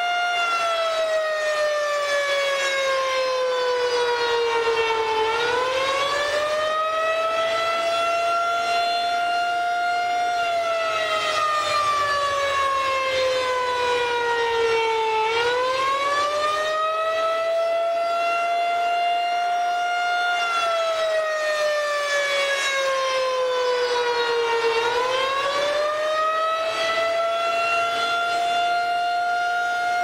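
Federal Signal 2001-DC rotating electromechanical warning siren sounding the attack signal. Its pitch falls slowly for about four seconds, then swoops back up and holds, in cycles of about ten seconds, three times over.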